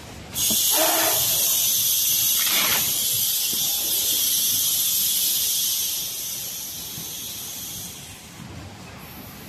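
Loud, steady hiss of compressed air on a carton case-packing machine. It starts suddenly about half a second in and eases off in steps after about six seconds, with a couple of duller machine knocks in the first three seconds.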